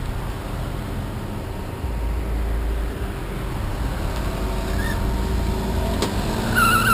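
Steady low rumble of a vehicle moving along the road, with engine and road noise; in the second half a faint engine tone rises slightly in pitch. Just before the end a wavering, higher-pitched sound begins.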